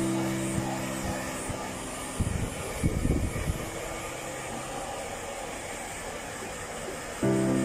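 Hand-held hair dryer blowing steadily, with a few low thumps about two to three and a half seconds in. Background music with a held chord plays over the first two seconds and comes back near the end.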